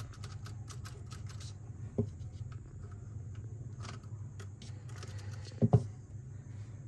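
Small clicks and rattles of plastic and metal RC car parts as a drift wheel is handled and fitted onto the chassis, with a knock about two seconds in and a louder double thump near the end, over a steady low hum.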